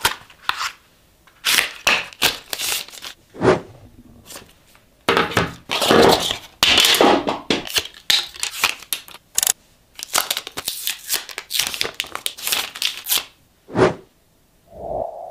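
Unboxing handling of the ROG Phone 7 Ultimate's cardboard packaging and accessories: boxes sliding and rubbing, paper and wrapping rustling and crinkling in irregular bursts, with a few sharp clicks and taps. A soft hum-like tone starts near the end.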